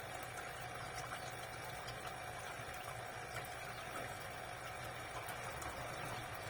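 Aquarium pump running with water bubbling in the tank, a steady hum with faint scattered ticks.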